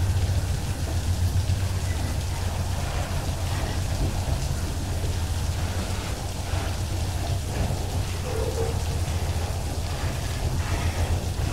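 Heavy rain pouring down, with a steady low rumble from a freight train of wagons loaded with eucalyptus logs rolling slowly past.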